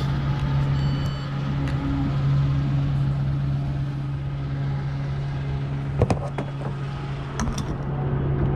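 Steady low hum at a fuel pump, with short electronic beeps from the card payment terminal about a second in. Two clunks later on as the diesel nozzle is lifted and set into the car's filler neck.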